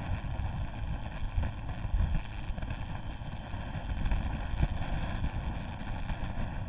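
Low wind rumble buffeting the microphone of a motorcycle-mounted camera at road speed, with the motorcycle's running and tyre noise underneath, gusting unevenly throughout.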